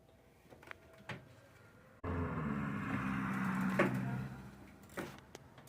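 Faint clicks, then a small electric motor starts abruptly about two seconds in, hums and whirs steadily for about two seconds, and winds down and fades out.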